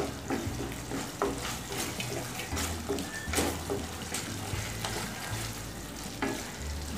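Sauce-coated vegetables sizzling in a non-stick wok while a wooden spatula stirs them, with repeated irregular scrapes and taps against the pan.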